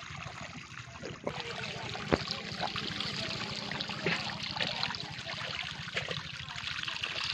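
Water running and trickling out through a plank chute into a shallow muddy channel crowded with small puti fish (pool barbs) splashing in it. The flow grows louder and busier about a second in, and a single sharp knock comes about two seconds in.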